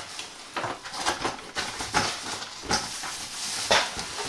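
Cardboard box being opened and the plastic storage jug taken out: a string of irregular knocks and clatters over rustling, the sharpest knock near the end.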